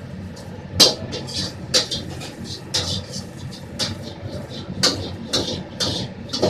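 Metal ladle striking a wok about once a second, with hissing between the strikes, over a steady low rumble of the kitchen.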